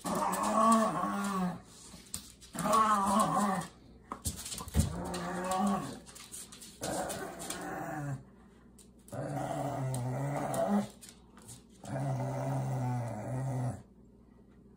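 Pugs growling in play while tugging on a shoe: about six drawn-out growls, each a second or two long, with short pauses between them.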